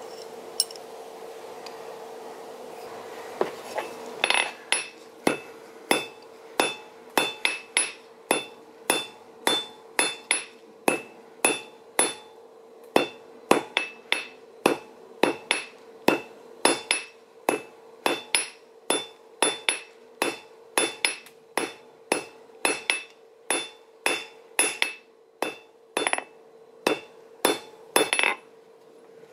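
Blacksmith's hand hammer striking red-hot metal on the anvil, about two blows a second with a bright ringing after each, starting about four seconds in. A steady hum runs underneath.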